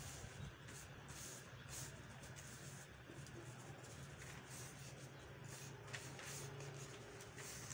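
Brown kraft paper rustling and sliding faintly as it is folded and creased by hand, with a few soft ticks near the end, over a low steady hum.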